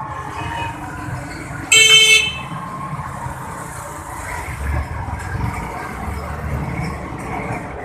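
A vehicle horn gives one short, high-pitched toot about two seconds in, over a steady low rumble of street noise.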